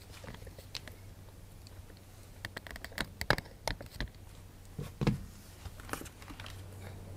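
Irregular light clicks and taps, clustered about two and a half to four seconds in and again around five to six seconds, over a steady low hum.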